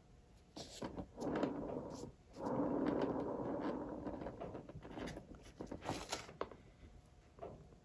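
A round paint-pouring spinner base turned by hand, making a steady rolling, scraping noise for about two seconds starting about two and a half seconds in. Scattered clicks and knocks of handling come before and after it.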